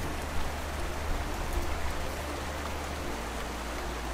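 Small alpine snowmelt stream running over rocks: a steady rushing, splashing trickle.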